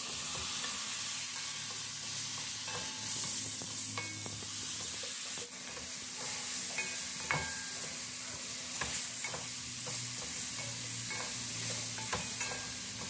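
Chicken pieces sizzling in hot oil with fried onion and spice masala in an aluminium kadai, stirred with a wooden spatula. The spatula knocks and scrapes against the pan in short irregular clicks over the steady sizzle.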